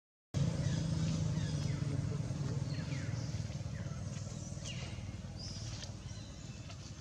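Outdoor ambience: a steady low rumble that slowly fades, with a few short, high calls that slide downward in pitch.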